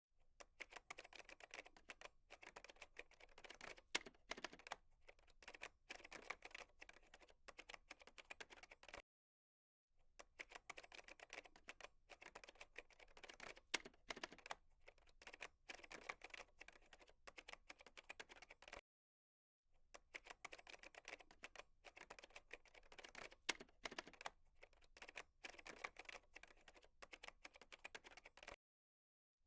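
Fast typing on a computer keyboard: a dense run of key clicks with a few harder strokes, about nine seconds long. The same run plays three times with short breaks of silence between.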